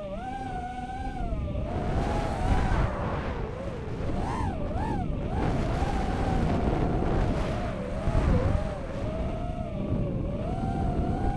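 Racing quadcopter's brushless motors and tri-blade props whining, the pitch rising and falling constantly with the throttle, with several quick blips about four to five seconds in. Heavy wind rush buffets the onboard camera's microphone.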